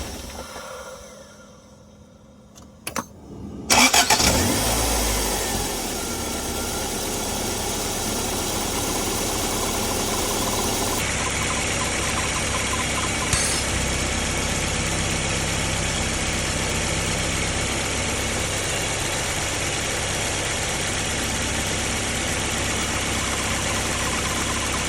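Toyota AE86 Sprinter Trueno engine: the sound dies away at the start, and after a couple of clicks the engine cranks and fires about four seconds in. It revs briefly, then settles into a steady idle with the squeal the owner says it makes the whole time it runs. Pulling the blow-by hose cures the squeal, and the owner suspects a vacuum (negative-pressure) leak dating from his intake manifold overhaul.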